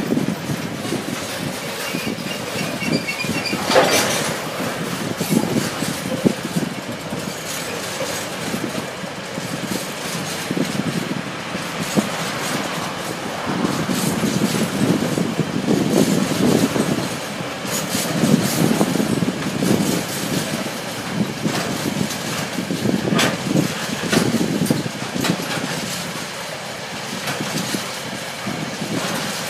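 Container flat wagons of a long freight train rolling past: a steady rumble and clatter of steel wheels on the rails, swelling and easing, with a few sharp clicks.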